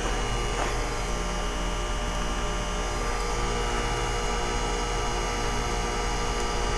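2003 Carrier TECH2000 4-ton heat pump outdoor unit running in its defrost cycle: a steady hum with several held tones. The coil's ice has mostly melted off and the unit is steaming.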